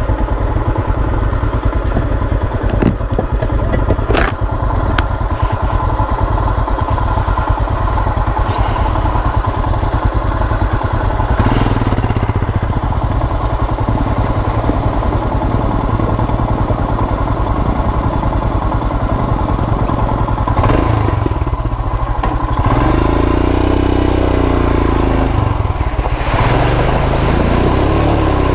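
Royal Enfield Himalayan's 411 cc single-cylinder engine running at low speed, with a rise and fall in engine pitch a little over 20 seconds in. Near the end, water splashes as the motorcycle rides into a shallow creek.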